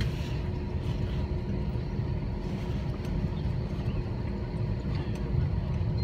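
Steady low cabin rumble of an Airbus A321-200 taxiing on the ground, engines at taxi idle, heard from inside the cabin, with a faint constant hum and scattered light clicks and rattles.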